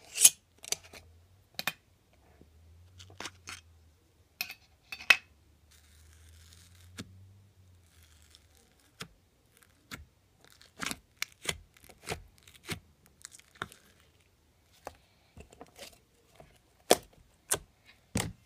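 Clear glitter slime being handled: an irregular run of sharp clicks and small sticky pops and crackles as it is poked and pulled out of a glass jar. A metal screw lid is twisted off the jar at the very start.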